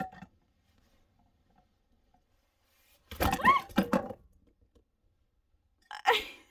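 A woman's short wordless cries of dismay, twice: one about three seconds in and a shorter one near the end, right after she has spilled milk.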